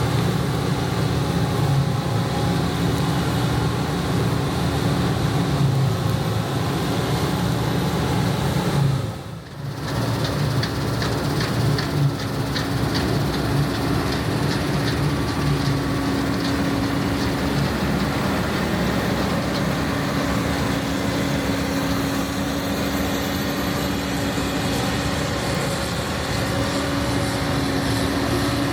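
John Deere 9610 combine harvester running steadily while harvesting wheat: a continuous diesel engine and machinery drone with a steady hum. The level dips briefly about nine seconds in.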